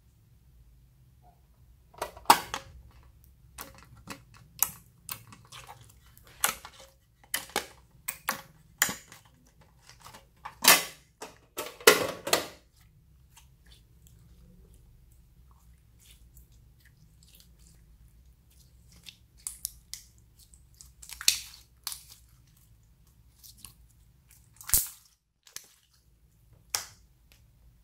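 Clear slime squeezed and stretched by hand, giving sharp pops and crackles of trapped air. The pops come thick for about ten seconds, stop for a few seconds, then return scattered.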